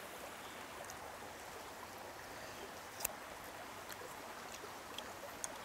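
Faint, steady rush of a stream running, with one sharp click about three seconds in.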